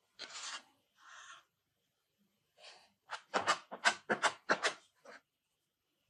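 Plastic glue spreader scraping white glue across a wooden laminating strip: two slower strokes, then after a pause a quick run of about seven short scraping strokes.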